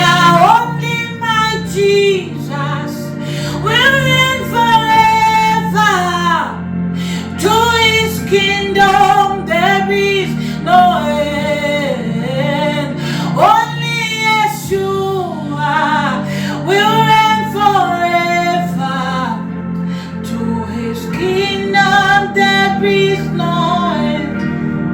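A woman singing a slow worship song in long, held, sliding phrases over a sustained instrumental accompaniment.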